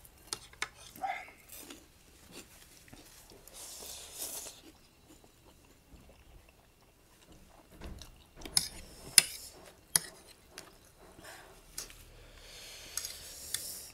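Close-up eating sounds: noodles slurped twice, a short slurp and a longer one near the end. Between them come scattered sharp clicks and crunches from forks on plates and bites of tortilla chips.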